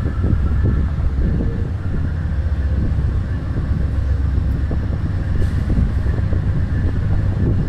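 VIA Rail GE P42DC diesel locomotive running slowly as it approaches, a steady low engine rumble.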